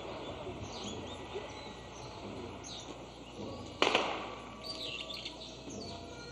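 Small birds chirping in short, falling calls over steady outdoor background noise, with one sharp crack about four seconds in.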